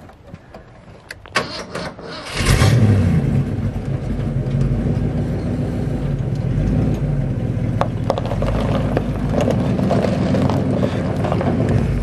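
Engine of a 1967 Ford pickup truck catching and starting about two seconds in, then running steadily.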